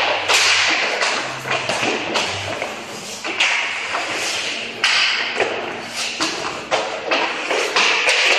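Hockey sticks and pucks clacking and thudding on the rink surface and boards, with skate blades scraping; irregular sharp knocks several times a second throughout.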